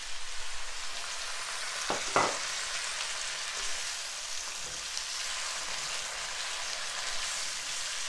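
Sliced bell peppers, okra, tomato and onion sizzling steadily in a hot nonstick wok with a sauce of soy sauce, oyster sauce and ketchup just added, stirred with a plastic spatula. A couple of quick knocks about two seconds in.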